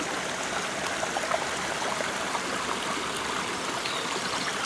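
Shallow creek running steadily over rocks and logs.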